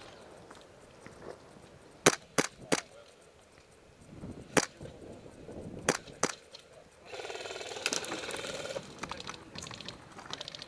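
Airsoft guns firing: six sharp single cracks spread over a few seconds, some in quick pairs and threes, then a rapid burst lasting about a second and a half, followed by a few lighter clicks.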